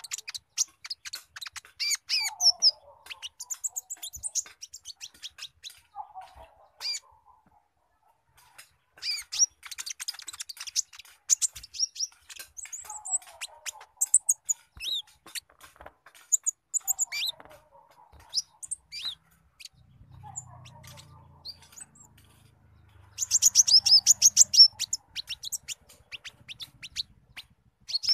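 Purple-throated sunbird (konin) singing in bursts of fast, high chattering notes, a song that takes in squirrel-like chatter. A lower, falling call comes in every few seconds, and the loudest burst of chatter comes near the end.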